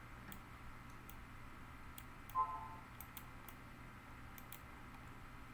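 Computer mouse clicking, a scattered run of soft single clicks as stones are dragged into place in a design program. A brief pitched blip sounds about two and a half seconds in.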